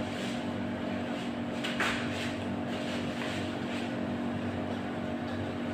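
Steady machine hum with a few low, even tones, with a brief rustle about two seconds in.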